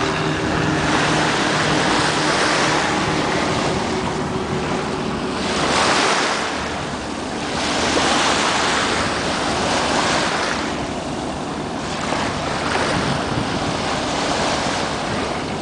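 Small sea waves washing onto the beach: a steady rush of surf that swells and fades every few seconds, with wind rumbling on the microphone.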